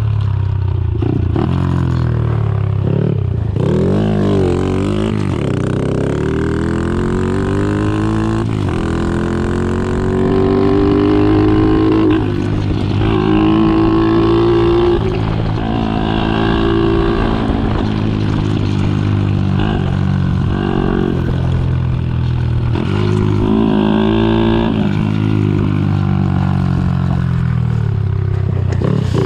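Custom Honda SL70 scrambler's small single-cylinder four-stroke engine running hard. Its note climbs for several seconds, drops back suddenly and climbs again, several times over.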